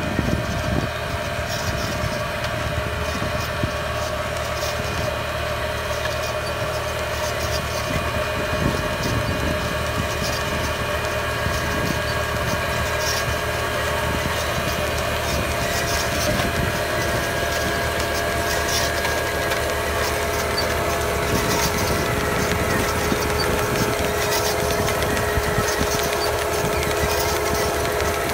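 Tractor engine running steadily while it pulls a mulch-film maize planter, with a steady whine from the machinery over the engine.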